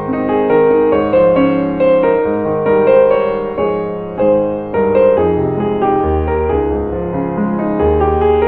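Background music led by piano, a slow, gentle instrumental with a deep bass line coming in about halfway through.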